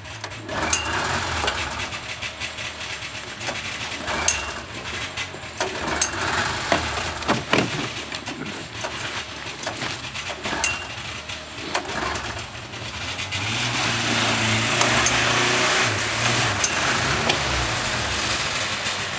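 A vintage motorcycle engine that is hard to start: a series of short starting attempts, each a brief burst of turning over with sharp clicks, until it catches about 13 seconds in and keeps running steadily.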